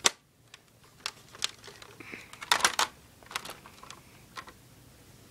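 Handling noise: scattered light clicks and taps of plastic being handled, with a quick cluster of clicks a little past halfway.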